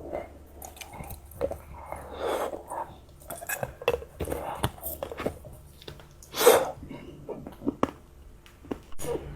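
Close-up chewing of chocolate with sticky starch-syrup candy: wet mouth smacks and small clicks, with one louder burst about six seconds in.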